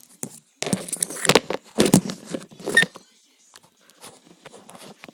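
Plastic toy figures clattering and rattling against each other and a hard surface for about two seconds, then a few faint clicks.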